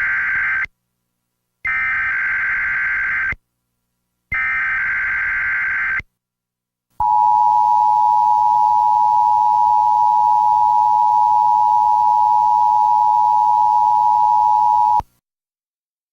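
Emergency Alert System header: three short, identical buzzing SAME data bursts (the first already underway), each followed by a brief gap, then the steady two-tone EAS attention signal for about eight seconds before it cuts off abruptly. It is the electronic opening of an emergency alert, here a severe thunderstorm warning.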